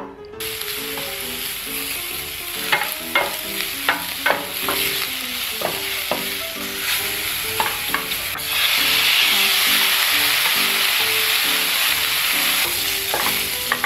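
Vegetables and meat sizzling in oil in a nonstick frying pan, stir-fried with a wooden spatula that scrapes and taps the pan now and then. The sizzle gets louder a little past halfway, when beef and garlic are frying.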